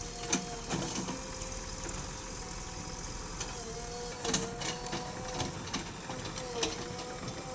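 JCB Xpert backhoe loader working: engine and hydraulics running with a steady whine that dips briefly several times under load, with sharp knocks from the digging arm and bucket scattered through.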